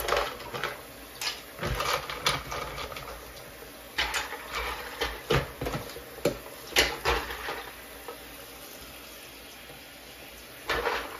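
Small plastic keyboard keycaps clicking and clattering against each other and the sink as they are handled and washed, over water running from a bathroom tap. The clatter is irregular, stops for a few seconds near the end, then returns in one short burst.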